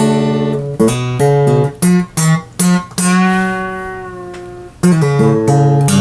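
A five-string guitar being strummed and picked: a run of short chords, then one chord left ringing for about two seconds, then more strums near the end.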